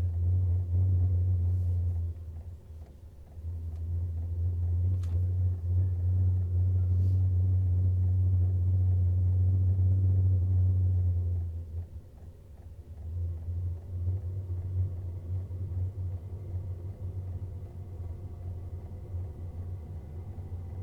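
Sunster diesel air heater in its start-up cycle, giving a loud low rumble that cuts out twice for a moment and returns, as the burner lights and the unit warms up. Near the end a fainter rising whine comes in as the fan winds up.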